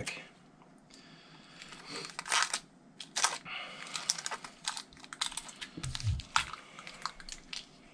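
Kapton tape being pulled off its roll and pressed down over the nickel strips of a lithium iron phosphate cell pack: crinkling of the thin film with scattered light taps and clicks.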